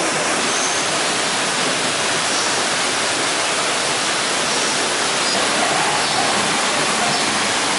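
A steady, loud rushing noise, even and unbroken throughout.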